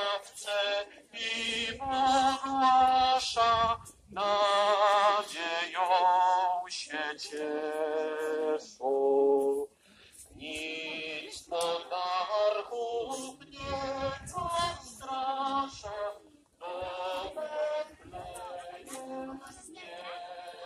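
Singing voices: a melody in long held notes with a wavering vibrato, phrase after phrase with short breaks between.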